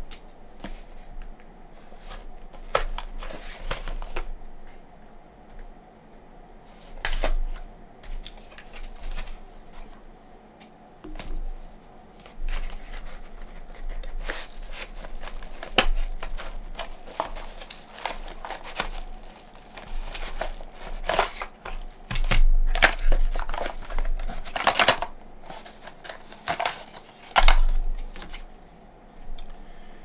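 Small cardboard retail box being opened and unpacked by hand: irregular rustling, scraping and crinkling of card, paper and plastic, with several louder knocks as the box and its contents are handled and set down.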